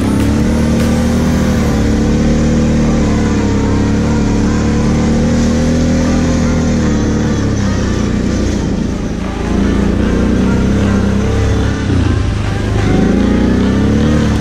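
Kawasaki KFX 700 quad's V-twin engine running under throttle while riding, its note holding fairly steady, then dropping off briefly twice in the second half and climbing again near the end.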